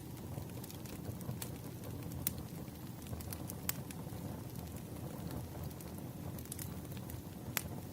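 Firewood burning: a steady low rumble of flames with scattered sharp crackles and pops, the clearest about two, three and a half, and seven and a half seconds in.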